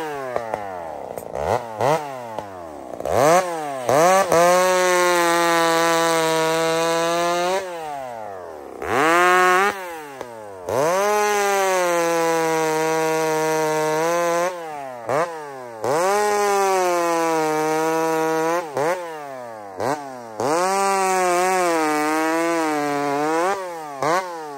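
Ported Husqvarna 266XP two-stroke chainsaw with a 28-inch bar and a 'baby C' filed chain, bucking a log. It makes four long full-throttle runs through the wood, dropping to idle and blipping the throttle between them.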